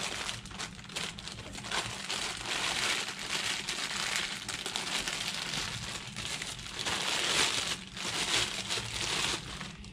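Clear plastic parts bags crinkling and rustling as gloved hands open and handle them, a continuous crackle with short lulls.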